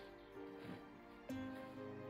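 Soft instrumental background music, with new notes coming in about every half second.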